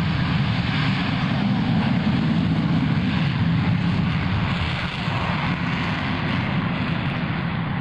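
Four F/A-18 Hornet jets taking off together in afterburner: a loud, steady jet roar that eases slightly about five seconds in as they climb away.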